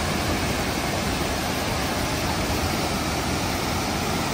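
Bousra Waterfall's falling water rushing as a loud, steady, even noise.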